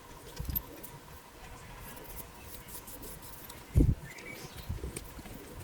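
Small knocks and faint clicks of drone frame parts being handled and taken apart, with a louder short thump about four seconds in.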